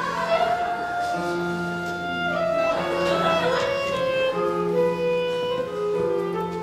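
Live pit orchestra playing the musical's score: several instruments holding long notes together, the chords changing every second or so.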